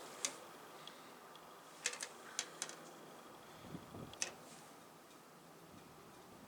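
Light clicks and taps of plastic model-kit sprues being handled, about eight short clicks in the first half, then only faint room hiss.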